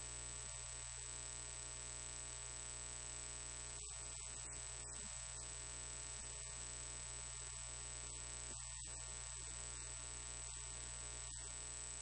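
Steady electrical mains hum with a constant high-pitched whine above it and a faint hiss. No voice comes through.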